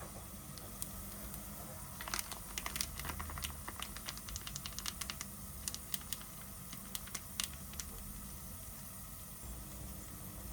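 A run of light, irregular clicks and taps, bunched together from about two seconds in until about seven and a half seconds, over a steady low hum.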